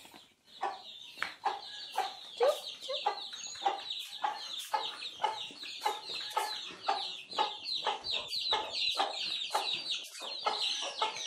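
A hen clucking steadily as she leads her chicks, with the chicks peeping continuously in high, short, falling notes over the clucks.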